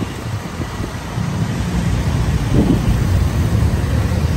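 Wind rumbling on the microphone of a moving motorbike, over its engine and the surrounding street traffic; the rumble grows louder about a second in.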